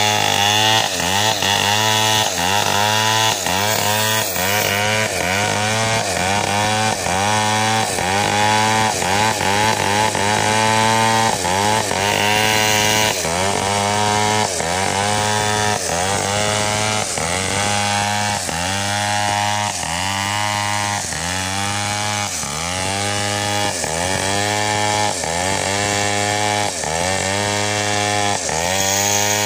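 Two-stroke Stihl chainsaw with a 36-inch bar ripping a coconut log lengthwise into 2x4 lumber. The engine runs at high revs, its pitch dipping under load and recovering about once a second as the bar works through the cut.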